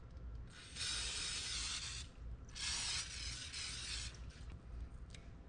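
Aerosol olive oil cooking spray hissing from its can in two bursts of about a second and a half each, with a short pause between them.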